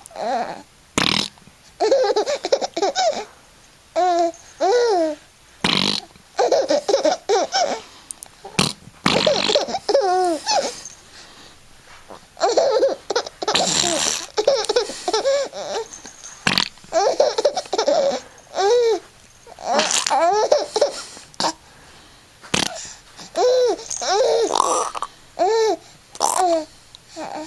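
A small child laughing in repeated high-pitched bouts, with a few short sharp sounds in between.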